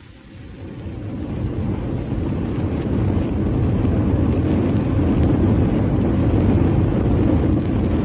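Old-time radio sound effect of a rocket ship in flight: a rushing noise that swells in over the first two or three seconds and then holds steady and loud, marking the cut to the characters aboard their ship.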